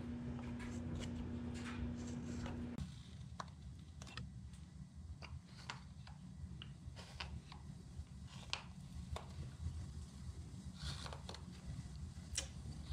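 Whittling knife cutting into basswood: short, irregular snicks and scrapes of the blade paring off shavings as a small saucer is carved. A low steady hum sounds under the first three seconds and cuts off suddenly.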